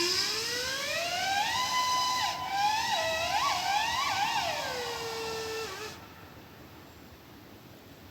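Fire alarm steam whistle blowing a single varying-pitch blast: the tone rises steadily to a high held note, warbles down and up about three times, then slides down and cuts off about six seconds in. A faint steady hiss remains after it stops.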